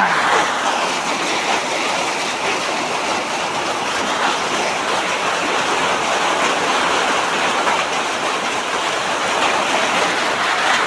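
Heavy rain pouring down, a steady dense hiss without letup.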